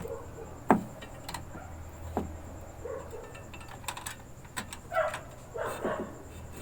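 Scattered clicks and knocks of equipment and wiring being handled and moved aside on a work surface, over a low steady hum.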